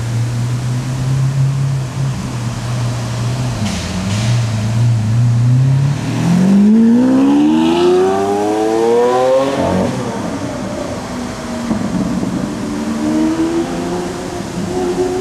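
Lamborghini Aventador LP700-4's V12 engine pulling away hard: a steady low engine note at first, then the pitch climbs steeply for about three seconds as it accelerates, breaks off sharply at an upshift about two-thirds through, and climbs again in the next gear near the end.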